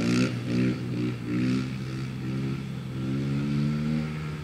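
Kawasaki KLX dirt bike's single-cylinder four-stroke engine revving in repeated surges, its pitch climbing with each, with a longer climb near the end as it accelerates.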